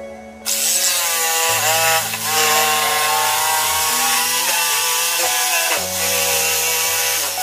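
Electric jigsaw cutting through a wooden board, starting about half a second in and running steadily, with music playing underneath.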